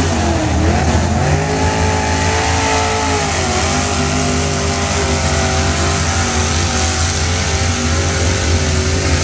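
Lifted pickup truck's engine revving hard as the truck powers through a mud bog pit. The revs climb about a second in, dip briefly a few seconds in, then hold high and steady.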